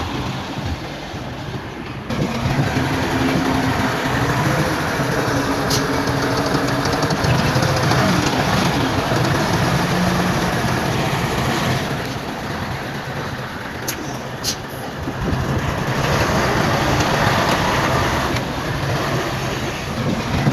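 Crawler bulldozer's diesel engine working under load, with the clatter of its steel tracks; the noise swells and eases twice as it pushes. A few sharp metallic clinks cut through about halfway in.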